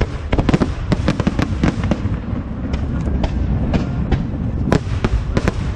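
Aerial fireworks bursting in a rapid volley of cracks and bangs, thickest in the first two seconds, with two louder bangs near the end.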